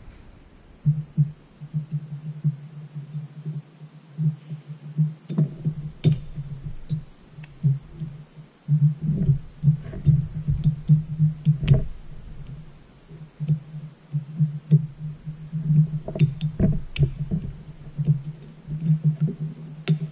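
Snap ring pliers and a steel snap ring clicking sharply against the angle drive's metal housing a handful of times while the ring is worked into its groove. A low hum that pulses in loudness starts about a second in and runs underneath.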